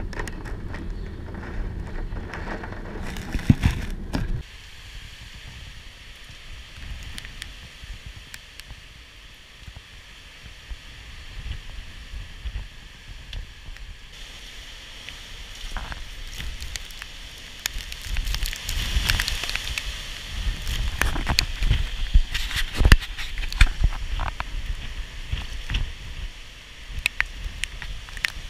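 Hurricane wind and rain, with gusts buffeting the microphone as low rumbles and thumps, heaviest in the first few seconds and again in the second half.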